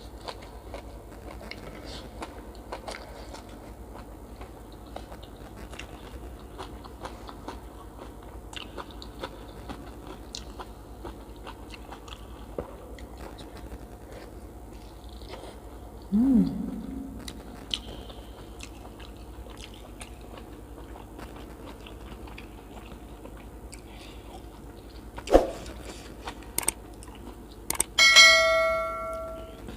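Close-up eating sounds: steady chewing and biting with many small wet clicks. About halfway there is a short low sound that glides in pitch. Late on comes a sharp knock, and near the end a clink that rings briefly.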